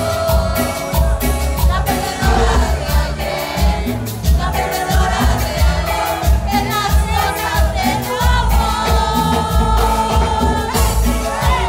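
Live cumbia band playing with electric guitar, bass and drums over a steady beat, with sung vocals and a crowd singing along.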